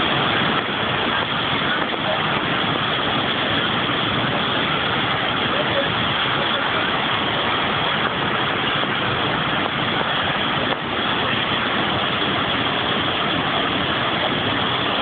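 Whitewater rushing over a weir: a loud, steady rush of churning, foaming water.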